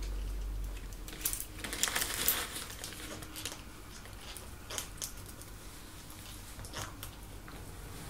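Faint scattered rustles and soft clicks as treats are handled from a plastic bag and fed to cockatoos, over a low steady hum.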